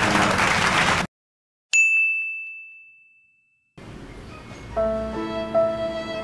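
A single bright ding, struck once and ringing out as one clear tone that fades away over about two seconds, between cuts to dead silence. Soft music comes in near the end.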